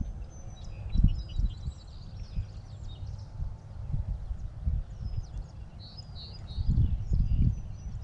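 Several birds chirping and whistling in short repeated calls, over irregular low rumbles on the microphone, strongest about a second in and again near the end.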